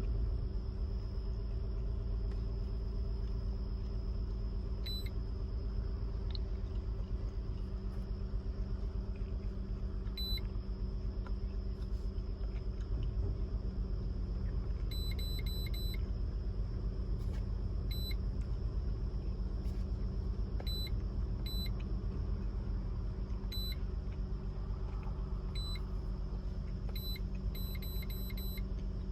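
Honda Odyssey 3.5 L V6 idling steadily while cylinder 3 misfires, with the check-engine light flashing for the misfire. Short high-pitched chirps come in irregular little groups over it.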